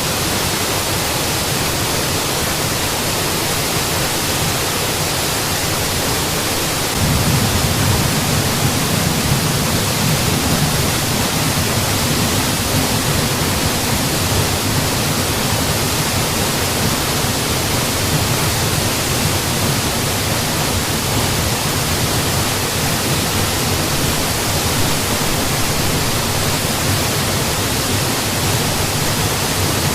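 Mountain waterfall: a steady rush of falling water, with a deeper low rumble that comes in about seven seconds in and stays.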